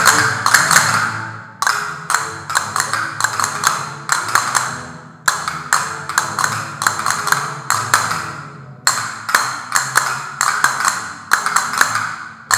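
Several pairs of castanets played together in rapid rolls and strikes. They come in phrases of about three and a half seconds, new ones starting sharply about one and a half, five and nine seconds in, over quieter music underneath.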